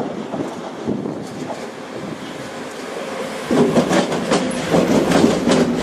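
DB Class 189 electric locomotive rolling past at low speed. Its wheels clack over rail joints and points, growing louder with a quick run of sharp clicks from about three and a half seconds in as it comes close.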